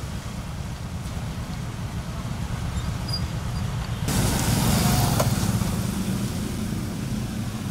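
Road traffic on a flooded street: motorbike and auto-rickshaw engines running with a steady low rumble. About four seconds in it turns louder, with a hiss added on top, then eases back.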